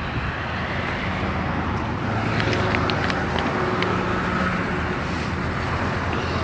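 Road traffic: cars driving past on a street, a steady rush of engine and tyre noise.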